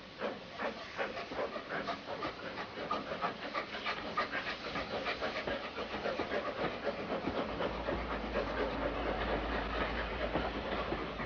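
Steam locomotive working hard as it moves off, its exhaust chuffing in a quick, even beat that grows louder. A low rumble joins near the end.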